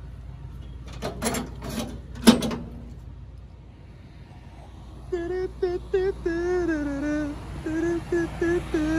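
A few sharp knocks in the first couple of seconds, then a voice humming a tune in short notes from about five seconds in, over the steady low rumble of an idling truck engine.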